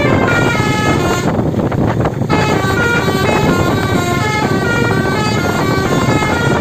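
Bus telolet horn, a set of multi-tone air horns, playing a fast melody of short stepped notes in the style of a snake-charmer tune. The notes break off for about a second shortly after the start, then carry on, over a steady noisy rush from the vehicle.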